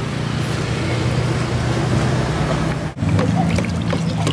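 Street traffic noise with a vehicle engine running, a steady low hum. It breaks off for an instant about three seconds in, and a few light clicks and clatters follow.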